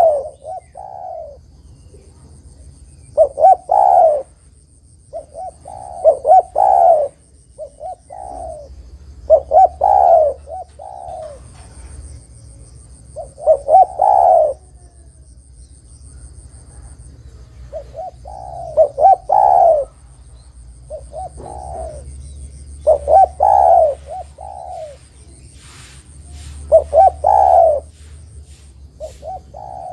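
Spotted dove (derkuku) cooing: a short multi-note coo phrase repeated about every three to four seconds, the territorial call played to lure wild doves into answering.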